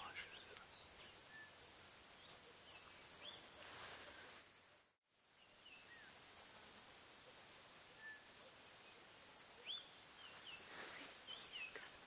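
Faint outdoor summer ambience: insects making a steady high-pitched drone with a faint high tick repeating about every 0.7 s, and scattered short bird chirps. The sound drops out for a moment about five seconds in.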